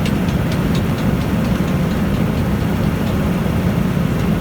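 Sugar beet piler machinery running: a loud, steady low drone of motors and conveyors, with a few faint ticks in the first second.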